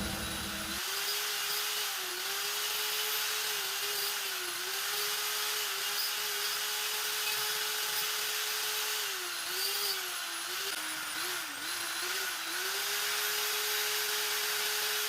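Small electric rotary carving tool running at high speed, its whine dipping briefly in pitch now and then, as when the bit is loaded against the wood.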